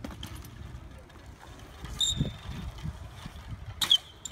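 BMX bike rolling on skatepark concrete: a low tyre rumble, a brief high squeak about two seconds in, and a sharp metallic clatter near the end.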